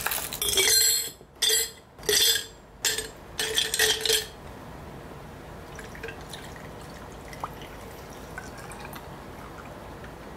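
Liquid poured into a glass in about five quick spurts over the first four seconds, then a faint steady hiss.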